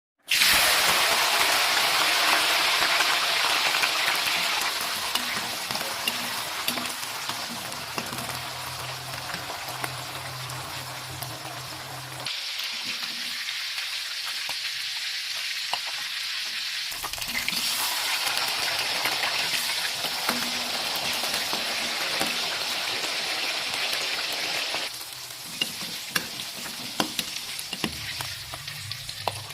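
A vegetable stir-fry sizzling in hot oil in a pan, with scattered clicks of a spatula stirring. The sizzle drops and comes back abruptly a few times.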